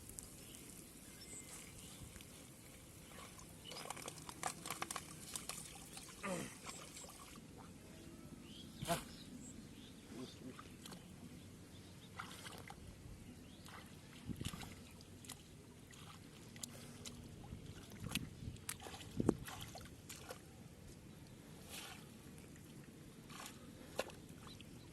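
Scattered small splashes and squelches of hands working through shallow muddy water, with short irregular strikes every second or two.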